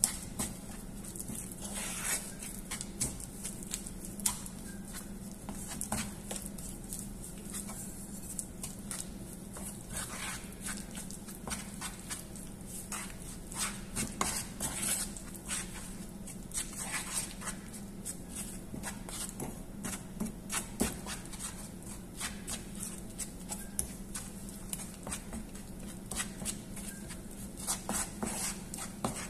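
Wooden spatula stirring and mashing cooked red kidney beans in a nonstick frying pan: an irregular run of scrapes and taps against the pan, over a steady low hum.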